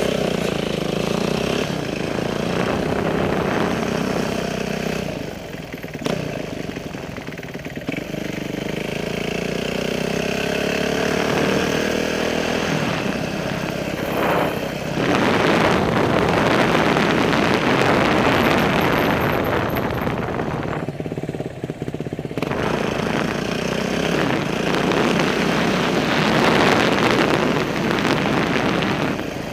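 Motorcycle engine running under way, its pitch rising and falling as the throttle opens and closes. About halfway through, a louder, even rushing noise takes over.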